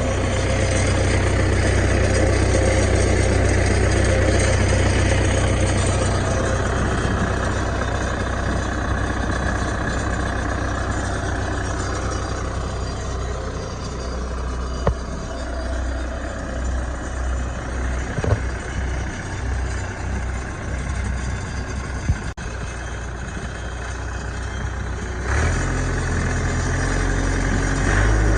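New Holland 555E backhoe loader's diesel engine running steadily. Its note eases down about halfway through, with a few sharp knocks. The engine picks up and grows louder again near the end.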